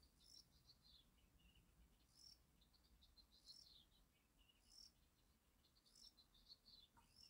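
Faint high-pitched chirping calls, a sweeping chirp recurring about every second and a bit, with runs of quick short notes between.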